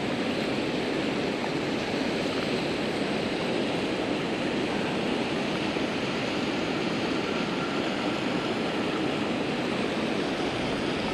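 Steady rushing of water pouring over a low-head dam spillway, an even unbroken roar.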